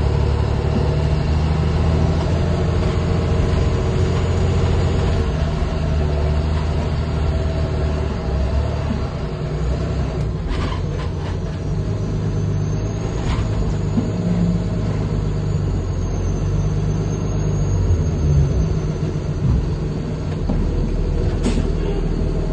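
Lion bus diesel engine running steadily as the bus drives off, heard from inside the cab, with a few brief sharp clicks or hisses partway through and near the end.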